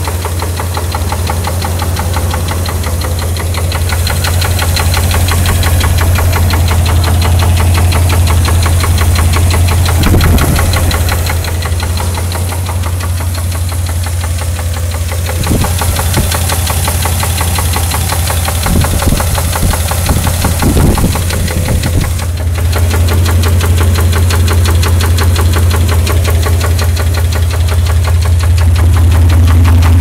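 1991 GMC S15 Jimmy's 4.3-litre V6, with 250,000 miles on it, idling with a fast, steady, rhythmic knock. The knock is newly developed, and the owner is unsure whether it is rod knock, lifter knock or both.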